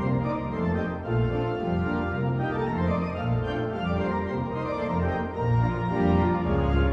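Background music: sustained organ-like keyboard chords over a bass line, the notes changing every second or so.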